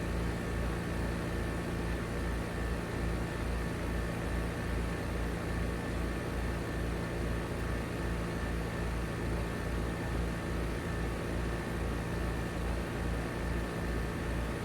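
2022 3-ton Trane XR14 heat pump outdoor unit running steadily, its compressor and condenser fan giving a constant hum with a low, rhythmic throb about two or three times a second.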